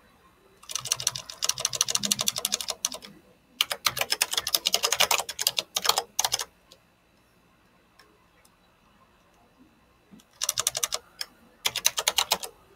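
Typing on a computer keyboard, keys clicking in fast runs. There are two long runs of a few seconds each, a pause of about four seconds, then two short runs near the end.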